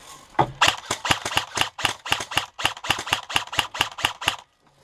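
Airsoft gun fired in a quick string of about twenty sharp shots, roughly five a second, stopping abruptly near the end.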